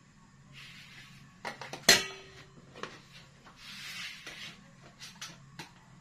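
Metal spoon scraping and knocking in a plastic container, with one sharp, loud clink about two seconds in that rings briefly. A low steady hum lies underneath.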